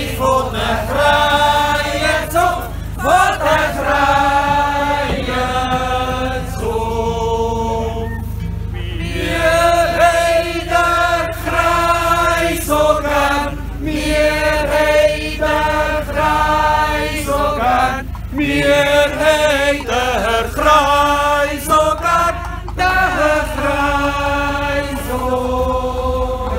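A group of men and women singing a song together, unaccompanied, in long held notes.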